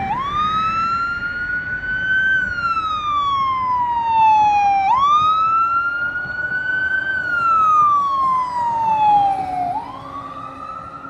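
Fire engine siren sounding a slow wail, on a Spartan ER Star pumper. The pitch climbs over about two seconds, then slides back down over the next few, starting again about every five seconds. The wail is loudest in the middle and fades in the last second or so as the engine moves off.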